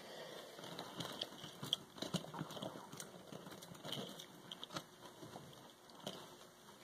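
Close handling noise: rustling with scattered light taps and clicks, thinning out in the last couple of seconds.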